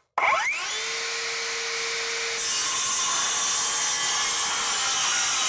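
Metabo HPT 36-volt MultiVolt cordless circular saw spinning up with a rising whine, then cutting through a large piece of dried red oak in its regular (non-silent) mode. The sound grows louder and hissier about two and a half seconds in, as the blade bites into the wood.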